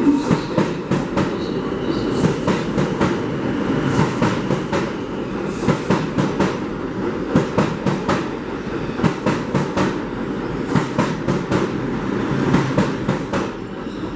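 R142 subway train departing the station and running past close by: a steady rumble of wheels on rail, broken by a fast, uneven run of clicks as the wheels cross rail joints.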